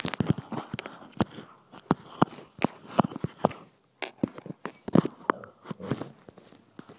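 Golden retriever puppy mouthing and chewing on an iPhone right at its microphone: irregular sharp clicks and knocks of teeth and paws on the phone, with soft rubbing and rustling between.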